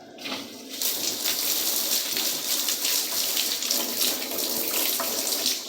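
Shower spray running into a bathtub in a steady rush of water while a cat is rinsed under it, louder from about a second in.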